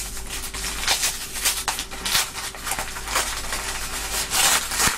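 A paper envelope being torn open and handled: irregular crackling, rustling and tearing of paper, with a faint steady hum underneath.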